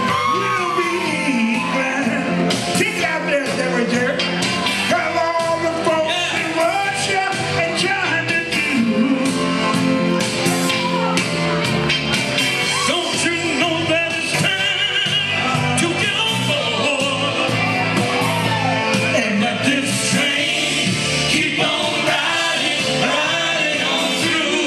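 Oldies-style song with a lead singer and full band backing, played loudly over a PA in a large hall.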